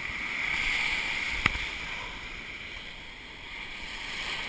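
Ocean surf washing in: a rush of water noise that swells over the first second and fades away, with a single sharp click about one and a half seconds in.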